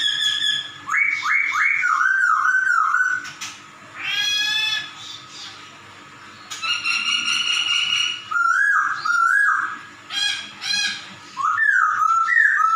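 A caged laughingthrush (poksay) sings a run of loud whistled phrases, with slurred notes that rise and fall like a cat's meow. The phrases come in bursts of one to two seconds, with short pauses between them.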